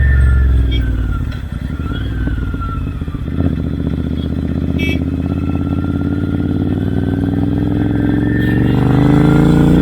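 Royal Enfield Interceptor 650's parallel-twin engine through Red Rooster Performance aftermarket exhausts, under way: the engine note falls away as the throttle closes, a brief knock comes about three seconds in, and the note holds steady before rising again near the end as the bike accelerates.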